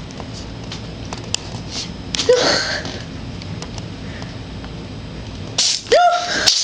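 A domestic cat sneezing twice, once about two seconds in and again near the end, each a short sharp burst of breath.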